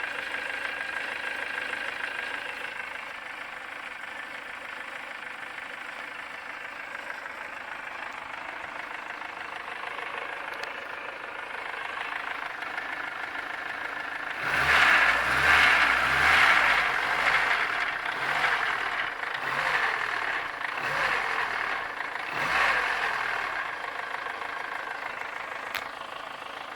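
VAZ-21083 1.5-litre eight-valve four-cylinder engine idling with a knock, then revved in about five or six quick blips about halfway through before settling back to idle. The owner puts the knock down to valve clearances that grew by about 0.1 mm after the head was rebuilt and the valves lapped.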